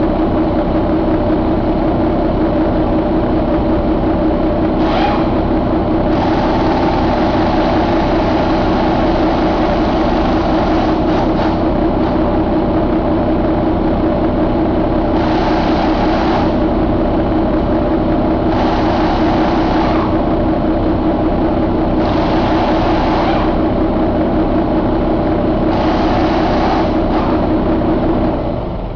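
Paccar MX13 inline-six diesel engine idling steadily, with a hiss that comes and goes several times; the engine is shut off near the end and the sound dies away.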